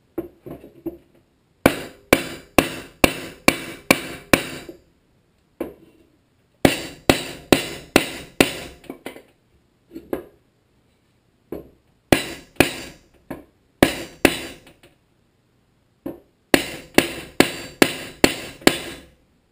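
A hammer tapping on a block of wood to drive a new crankshaft oil seal into a Tecumseh HSK70 engine's aluminium crankcase cover. The sharp strikes come in four quick runs of about three a second, with short pauses between the runs.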